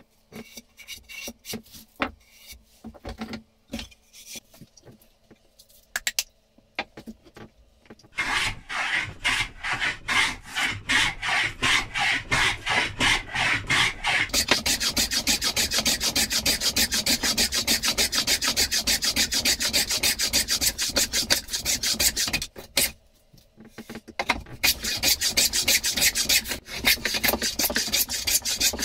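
Scattered light knocks and taps at first, then a long run of quick, rasping strokes: a handmade beech-bodied panel raising plane shaving a raised-panel bevel along a wooden board's edge. The strokes pause briefly about three-quarters of the way through, then start again.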